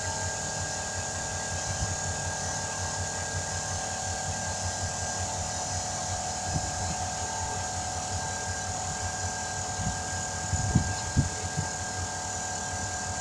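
Air compressor running steadily with a fast, even low pulsing, building air pressure to inflate a freshly mounted tire. A few knocks sound about ten to eleven seconds in.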